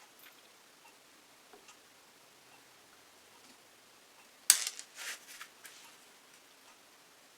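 A clatter of small hard objects being handled, about four and a half seconds in: a sharp knock followed by several lighter clicks over about a second. Faint scattered ticks come before it.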